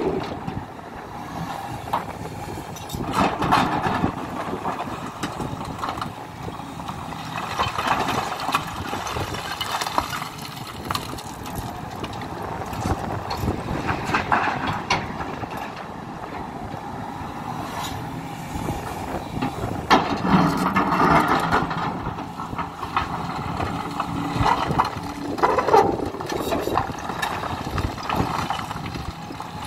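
Hidromek HMK 310LC hydraulic excavator working, its engine running continuously and swelling louder several times as it digs and loads.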